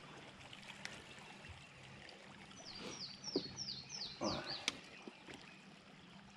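River water trickling and splashing beside the boat, with a bird giving a quick run of about six descending chirps midway and a short splash just after.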